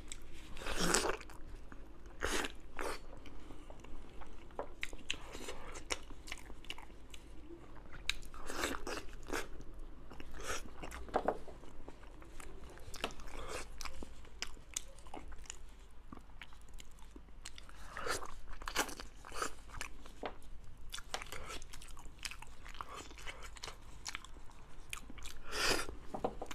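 Close-up eating sounds of a soft braised pig's trotter: wet biting and chewing, with sticky smacks of the meat being pulled apart by hand. These come at uneven intervals, with a few louder ones now and then.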